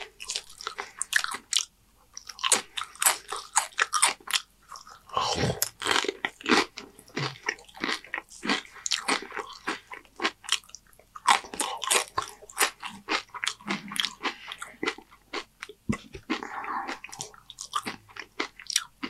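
Close-miked chewing of Doritos tortilla chips loaded with nacho toppings: a steady run of crisp crunches, several a second.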